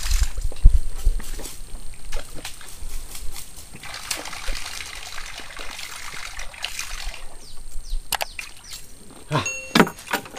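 Double-propeller topwater lure being worked across calm swamp water, its blades splashing and spluttering in short strokes. There is a low thump and rumble at the very start, and a brief high pitched call near the end.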